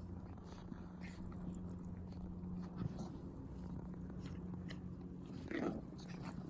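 Puppies chewing and mouthing at each other in play, with small scattered clicks and nibbling sounds over a steady low hum, and one short squeak about five and a half seconds in.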